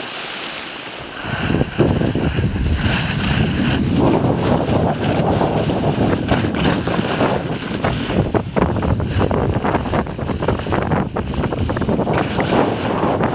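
Wind buffeting the microphone of a camera carried by a skier on the way down, mixed with the hiss and scrape of skis on packed snow. A loud low rumble sets in about a second in and carries on unevenly.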